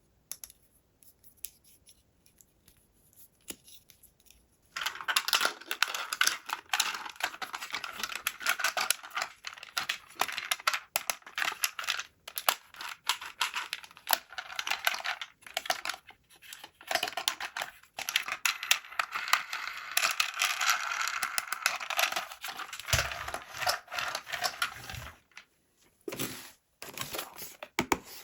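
Toy packaging being torn open and crinkled by hand. After a few faint clicks, a dense run of crackling starts about five seconds in and goes on for some twenty seconds, thinning out near the end.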